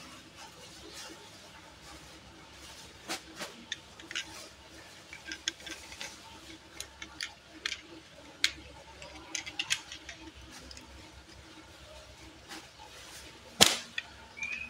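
Die-cast toy car being handled: scattered light clicks and taps of metal and plastic in the fingers and of its opening door, with one sharp, louder click near the end.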